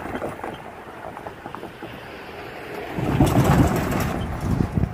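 Cars and trucks driving over a railroad grade crossing, with wind on the microphone. An SUV clears the crossing at the start, and about three seconds in a pickup truck's tyres rumble and thump over the rails and crossing panels. The pickup is the loudest part.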